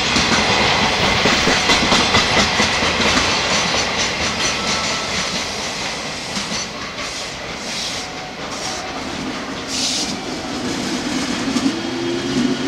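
215-series electric multiple unit pulling out of a station: loud rail noise with wheels clattering over joints, then near the end a rising hum from the traction motors as the train gathers speed.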